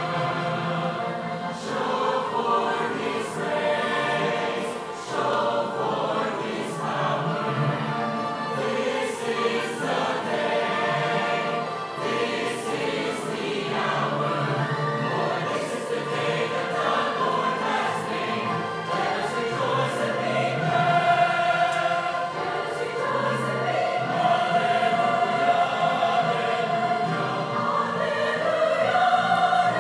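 Mixed-voice church choir singing a hymn in parts, with long held notes in the second half.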